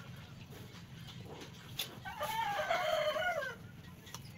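A rooster crowing once, a long call of about a second and a half starting about two seconds in.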